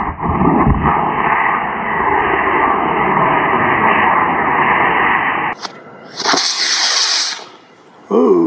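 Model rocket motor igniting and burning, a loud, steady rushing exhaust noise that starts suddenly and cuts off sharply about five and a half seconds in. The rocket briefly hung up on the launch rod at ignition before leaving the pad.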